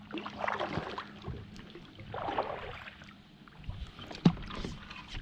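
Kayak paddle strokes through the water, two splashing pulls in the first three seconds, then a single sharp knock a little after four seconds in.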